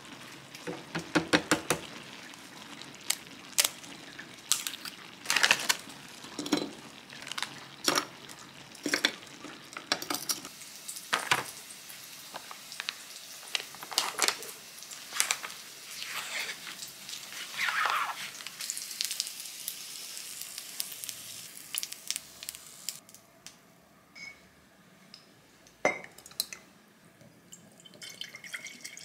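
Home cooking sounds: food frying in oil in a pan, with a run of sharp clicks and clatters from utensils and dishes. The activity thins out and goes quieter over the last few seconds.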